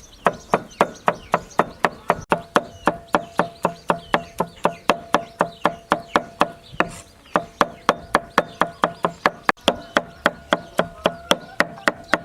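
A knife or cleaver chopping rapidly on a wooden cutting board, at an even pace of about four strokes a second, with a brief pause about seven seconds in.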